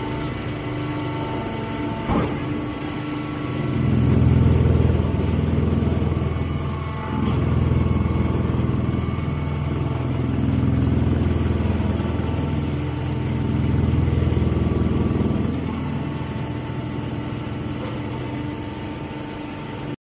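Hydraulic straw baler running: a steady motor hum that swells louder and deeper in several long waves between about four and fifteen seconds in. There is a single knock about two seconds in.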